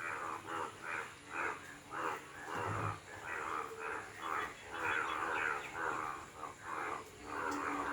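Frogs croaking after rain: a chorus of harsh, rasping calls repeating about two to three times a second, several frogs overlapping.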